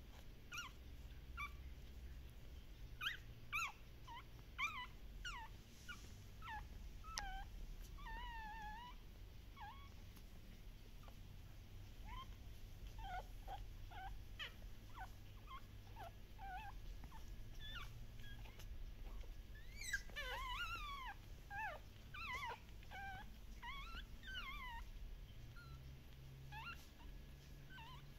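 Newborn Shiba Inu puppies squeaking and whimpering in short high calls, on and off, with a busier run of overlapping squeaks about twenty seconds in.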